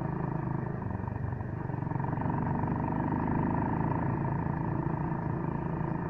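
Suzuki Gixxer 155's single-cylinder engine running steadily on the move.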